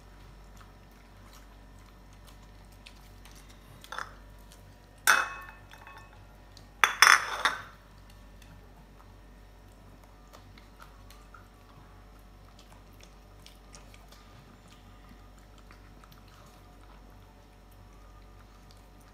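Two small dogs eating from plastic plates on a tile floor, the plates knocking and scraping on the tiles with faint ticks throughout. There are sharp clatters about four and five seconds in, and the loudest, a quick run of them, about seven seconds in.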